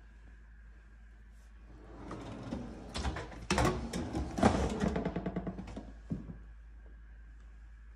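Kitchen drawers on sliding runners: a drawer of spice jars pushed shut and a deep drawer pulled open, giving a few seconds of rapid rattling clatter, with a single knock near the end.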